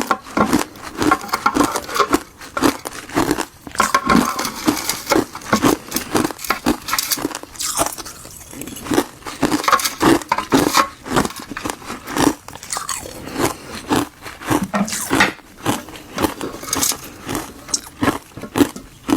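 Someone biting and chewing granules of frozen tartary buckwheat and gardenia tea ice, with dense, irregular crunches several times a second.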